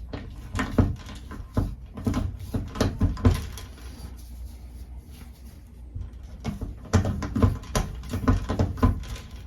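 Irregular clicks and knocks of hands handling the freshly removed screw and tools, in two busy spells with a quieter stretch in the middle, over a low rumble.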